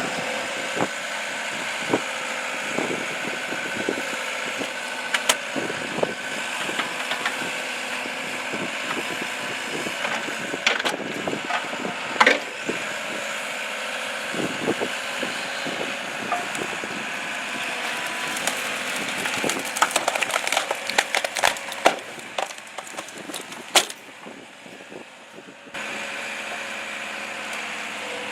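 Excavator running steadily under irregular cracks and snaps, some loud, as it works material. The sound drops quieter for a couple of seconds near the end, then cuts back in abruptly.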